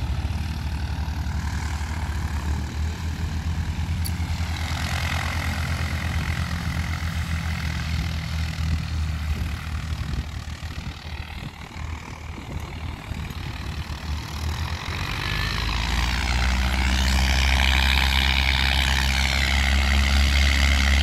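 Single-engine light aircraft's piston engine and propeller running at low taxi power, a steady drone; about fifteen seconds in it grows louder as the aircraft taxis close by, with a wavering propeller whine on top.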